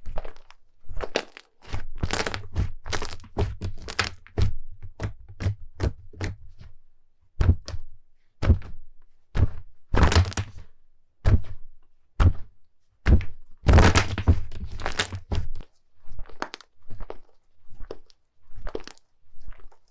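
Slime being pressed and poked by hand close to the microphone, giving an irregular run of sharp pops, thuds and crackles, some in quick flurries.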